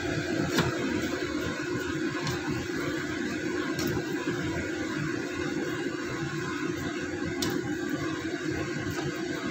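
A steady hum runs throughout, with a few sharp clicks of a spatula against the pan as sticky rice and jackfruit are stirred.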